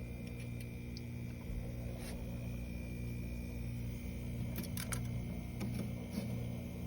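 Steady low electrical hum, with a few sharp clicks and taps about two seconds in and a small cluster around five to six seconds in.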